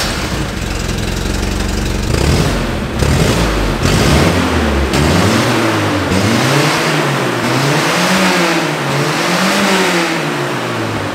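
1974 Toyota Celica ST's four-cylinder engine running through its small 1.5-inch exhaust and aftermarket muffler, which has a couple of small holes. It idles just after start-up, then is revved up and down several times in smooth swells over the second half.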